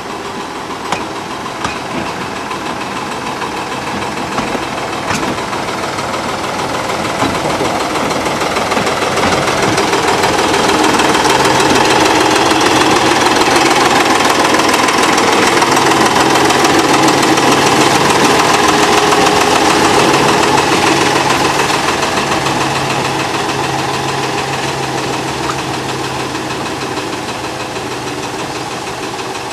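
Small narrow-gauge diesel locomotive's engine running as it passes with its train, swelling to a peak about halfway through and then fading away.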